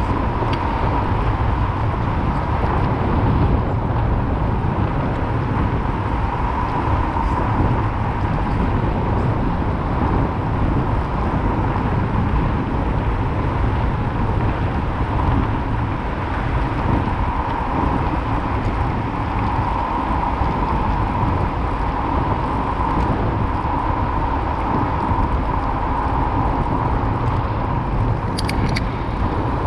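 Steady riding noise from a bicycle on a city street, with tyres rolling on asphalt, wind on the microphone, a constant hum and car traffic. There are a few brief high clinks near the end.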